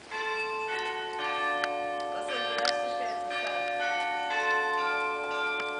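Church bells of the twin-spired Basilica of Sts Peter and Paul at Vyšehrad start ringing suddenly. The bells are struck again and again, and their long ringing tones overlap.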